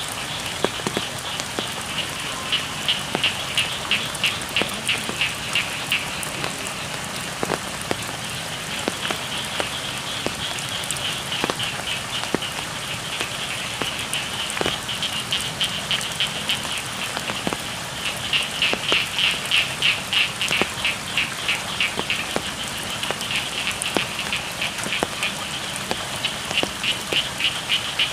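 Steady rain with scattered drops, and frogs calling in trains of quick, high-pitched pulsed calls that swell and fade in several bouts.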